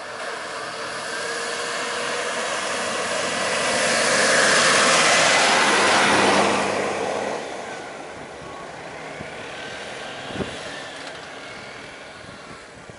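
A large bus drives past close by, its engine and tyre noise growing louder for several seconds and then falling away about seven seconds in, leaving quieter traffic running. A short thump comes about ten seconds in.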